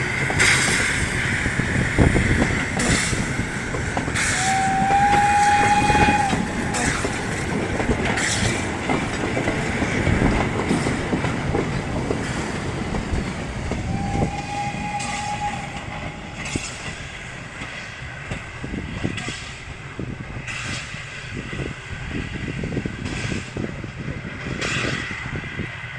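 Narrow-gauge steam train pulling away: the carriages rumble and their wheels click over the rail joints, fading as the train draws off. The locomotive's whistle sounds twice, a held blast about five seconds in and a shorter one about fourteen seconds in.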